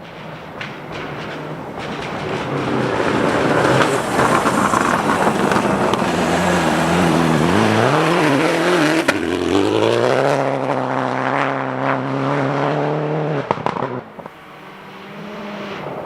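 Rally car engine at full throttle on a gravel stage, growing louder as it approaches. Its pitch dips and climbs through gear changes midway, holds high, then falls away sharply about two seconds before the end.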